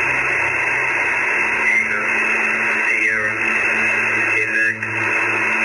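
Radio static: a steady hiss through a narrow, telephone-like band with a low hum under it, and a few brief whistling tones that slide in pitch.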